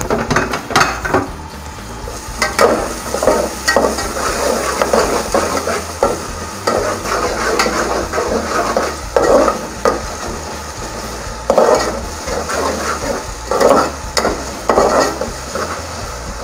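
Slotted metal spatula stirring and scraping spring onions and onion frying in oil in a metal pan, in repeated irregular strokes over a steady sizzle.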